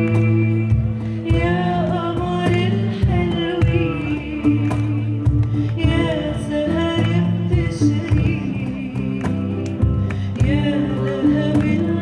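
A woman singing a slow, wavering melody live into a microphone, accompanied by a band with steady bass notes and guitar.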